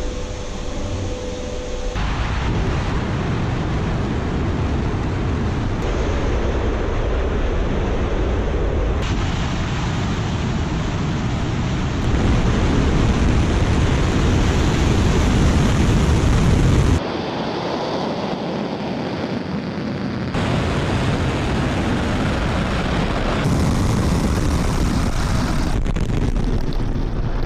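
Soyuz-2.1a rocket's engines at ignition and liftoff: a dense, deep rumble that comes in suddenly about two seconds in and grows loudest a few seconds before the middle, with wind buffeting the microphone. The sound changes abruptly several times where the footage is cut; a steady tone is heard before ignition.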